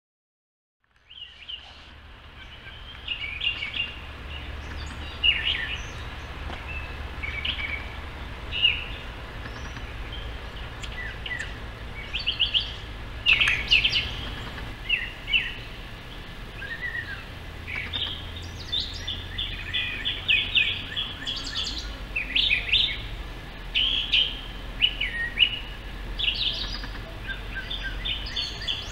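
Brown thrasher singing a long run of short, varied phrases, starting about a second in. A low rumble runs underneath.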